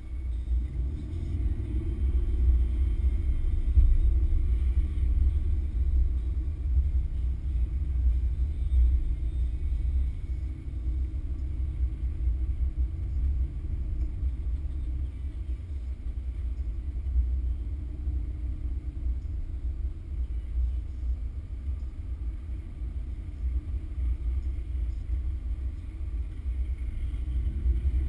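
Car engine and road rumble heard from inside the cabin while driving slowly, a deep low rumble with a steady engine hum through the middle.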